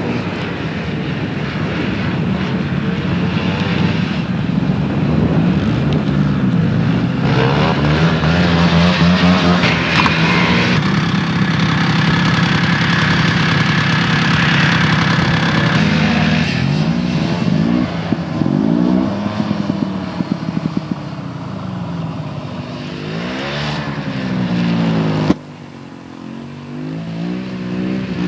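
Snowmobile engines running and revving as the sleds ride past, their pitch climbing and falling again and again. About 25 seconds in, the sound drops abruptly, then a quieter engine note comes back.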